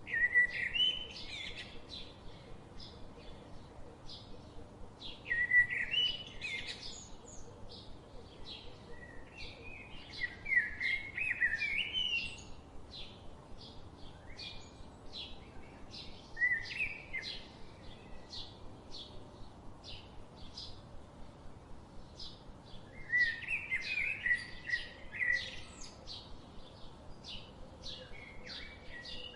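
Forest songbirds: loud warbled song phrases come every few seconds, over short high chirps repeating steadily about twice a second.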